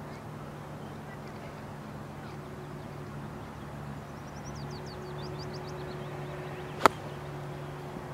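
A single sharp crack of a nine iron striking a golf ball, about seven seconds in. Under it runs a steady low hum, with a brief run of high bird chirps a little past halfway.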